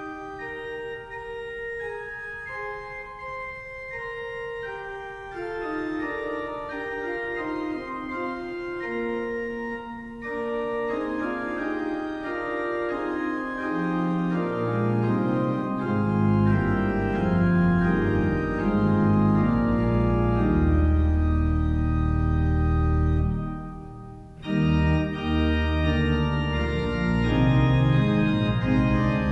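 Organ music: slow, held chords, with deep bass notes joining about halfway through and a short break a few seconds before the end.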